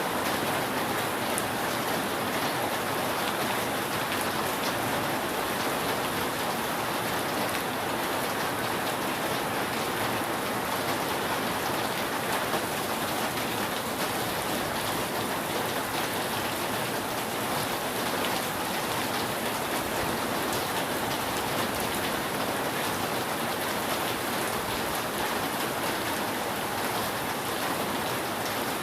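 Steady rain falling on a roof, an even hiss of many drops.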